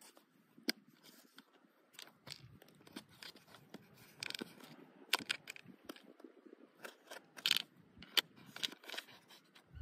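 Handling noise from a foam RC toy jet and its plastic battery compartment: irregular scrapes, crunches and small clicks as fingers rub and press the foam body and hatch, with a few sharper clicks in the second half.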